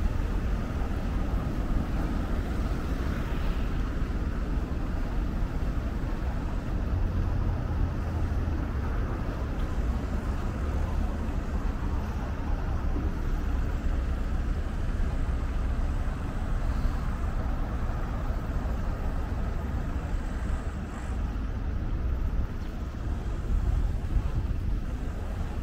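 City street background: a steady low rumble of traffic.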